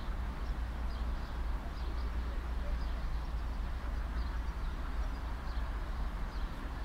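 Steady background ambience: a low rumble and a hiss, with faint short high chirps scattered through it.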